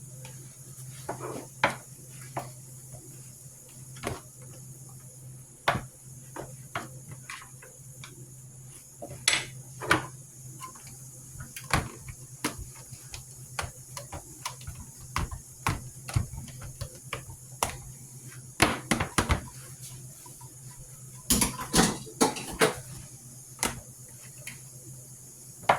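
Kitchen clatter: utensils, dishes and pans knocking and clinking at irregular moments, with busier clusters now and then, over a steady low hum.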